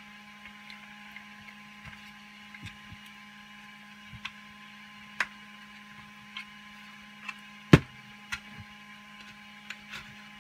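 Hard 3D-printed plastic parts clicking and knocking as they are handled and fitted together: scattered light clicks, with one sharp knock about three-quarters of the way through, over a steady low hum.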